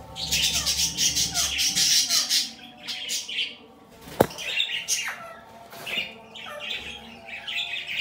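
Budgerigar chicks in a nest box squawking, a long harsh, rapidly pulsing run of calls at first, then repeated short raspy calls. A single sharp knock about four seconds in.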